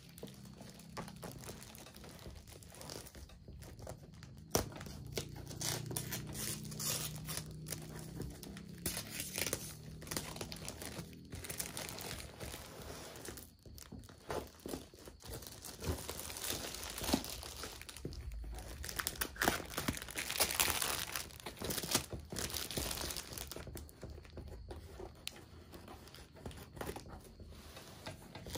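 Clear plastic wrap crinkling and tearing as it is pulled off a cardboard parcel, in irregular rustles and crackles.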